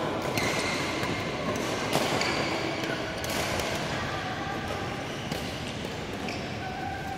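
Badminton shuttlecocks being struck by rackets: several sharp hits a second or two apart over a steady hall background.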